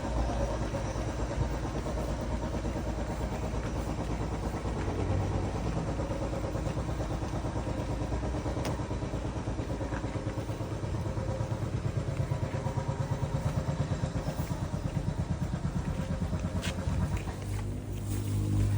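Small engine running steadily with a fast, even firing beat, a little louder for a few seconds near the end.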